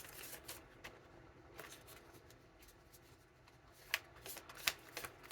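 Tarot cards being shuffled and handled by hand: faint rustling and riffling, with two sharper card snaps about four and nearly five seconds in.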